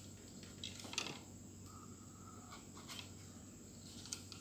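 Quiet room tone with a faint low hum and a few small clicks and taps; the strongest click comes about a second in.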